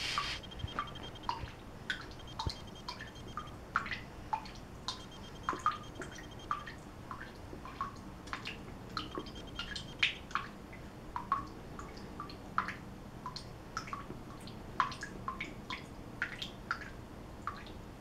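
Water dripping from a bathroom faucet into the sink basin: a run of short, irregular plinks, about one or two a second.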